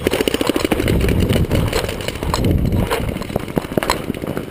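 Heavy rumble and clatter from a paintball player running with the camera: wind and jostling on the microphone, with footfalls and gear knocking and scattered sharp clicks.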